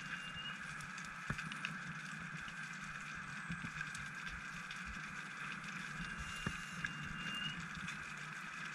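Steady underwater hiss picked up through a dive camera's housing, with a few faint clicks and, past the middle, a faint thin whistle that rises slightly.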